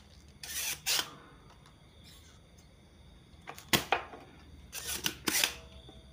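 Spring-loaded desoldering pump (solder sucker) snapping as it fires, with short hisses of suction, sucking solder off a joint on a TV power board to cut the B+ supply line. Three bursts come about a second in, near four seconds and around five seconds.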